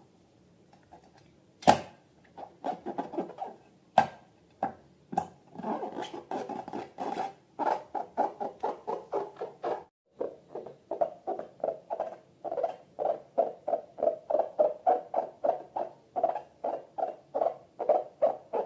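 Slime being mixed: quick, wet, sticky squelches in a steady rhythm of a few per second, with a short pause about halfway through. Two sharp clicks come in the first few seconds.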